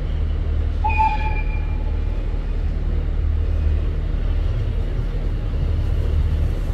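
Steady low rumble of an idling train engine in a railway station, with a short high tone about a second in that fades over a second.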